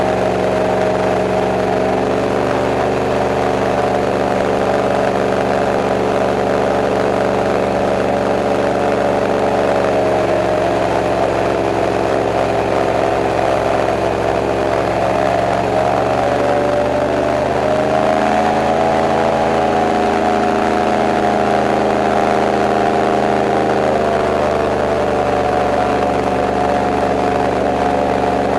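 Airboat engine and its big air propeller running loud and steady underway. The pitch sags a little about ten seconds in, climbs again around sixteen to eighteen seconds, eases near twenty-four seconds and picks up once more.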